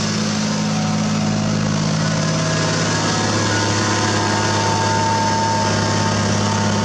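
Zetor Crystal tractor's diesel engine running steadily under load as it pulls a Helti AL 3x70 subsoiler through the ground.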